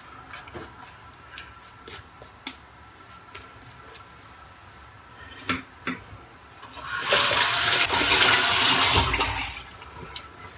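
Bathroom sink tap turned on and run for about two and a half seconds, water splashing into the basin, after a few light clicks and taps.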